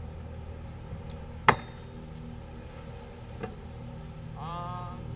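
Kick scooter clacking sharply onto the pavement once, about a second and a half in, with a fainter knock about two seconds later, over a steady low rumble. Near the end a brief high squeak rises and then holds.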